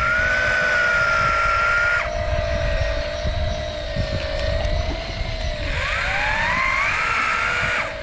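Electric fishing reels winding in line, their motors giving a steady wavering whine in two pitches. One whine cuts off about two seconds in, and near the end a motor speeds up with a rising whine.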